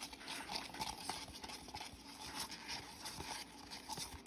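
A stir stick scraping and tapping in a plastic cup of Resincrete that has been thinned with too much water: faint, quick, irregular small clicks and scrapes.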